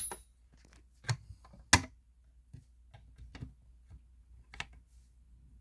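Sharp plastic clicks and knocks from handling a fire alarm pull station and demo board between activations, as it is reset. One loud click comes right at the start, two more strong knocks follow about a second and nearly two seconds in, then lighter scattered ticks.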